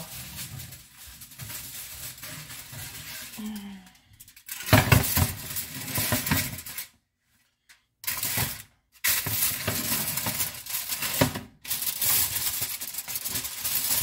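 Aluminium foil crinkling and rustling as it is handled and peeled back from a glass baking dish, with light clinks of dishes. Quieter handling for the first few seconds, then louder crinkling from about halfway, with a break of about a second.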